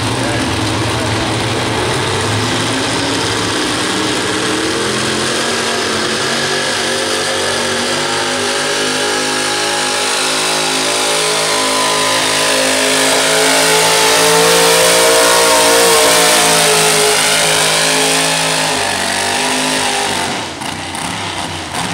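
Engine of a two-wheel-drive C-cab pulling truck running hard under load as it drags a weight sled, its pitch rising and then falling as it goes by, loudest about two-thirds of the way through. Near the end the sound drops off sharply as the engine comes off the throttle.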